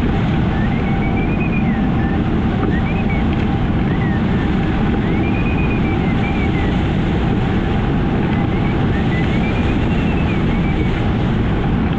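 Wind rushing loudly and steadily over the microphone of a hang glider in flight. Over it, a thin, faint whistling tone rises and falls every second or two.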